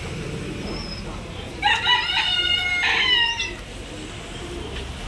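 A rooster crowing once, a single call of about two seconds starting about one and a half seconds in, over a steady low background hum.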